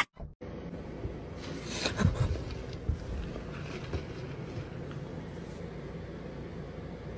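Quiet room tone: a steady low hum with a few faint clicks and rustles, most of them between one and a half and two seconds in.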